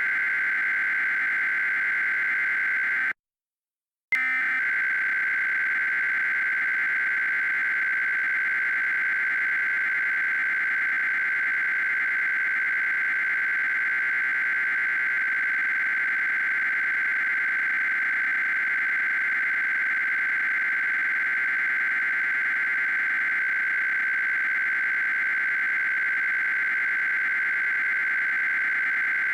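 EAS SAME header data burst: a continuous buzzing digital data tone shifting between two pitches around 1.5 and 2 kHz. About three seconds in it cuts off for about a second, then starts again with a click as the next repetition of the header begins.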